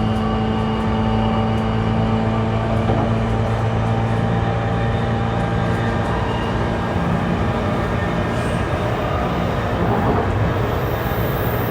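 Running sound inside a JR East E235-1000 series electric multiple unit at speed: steady rumbling wheel-and-rail noise under a low, even hum from the traction equipment, with one hum tone fading out about halfway through.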